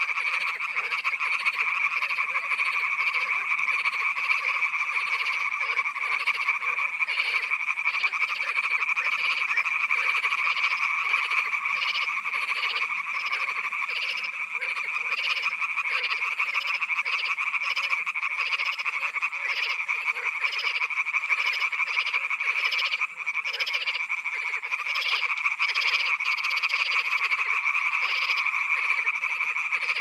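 A dense chorus of many frogs croaking at once, calls overlapping into a steady, unbroken wall of sound.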